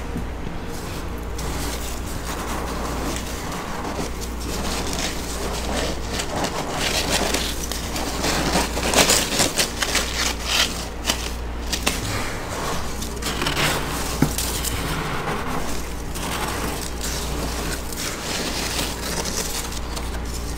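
Thick frost being scraped and broken loose inside a chest deep freezer with a metal utensil, a close, continuous crunching and scraping that grows busiest and loudest about halfway through.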